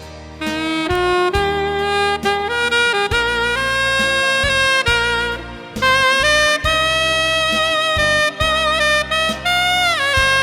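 Solo saxophone playing a slow ballad melody over a backing track with bass and drums. After a brief pause it climbs note by note for the first few seconds, then holds long notes with vibrato and slides down in pitch near the end.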